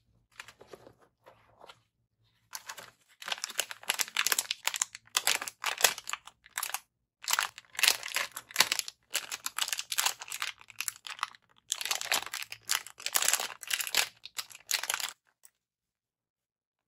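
Plastic packaging being handled, crinkling and tearing in quick irregular bursts as kit parts are unpacked. It is brief at first, then runs almost without a break for about twelve seconds and stops a little before the end.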